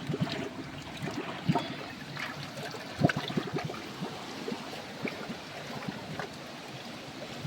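Water trickling from a spring source, a steady wash dotted with many small drips and splashes.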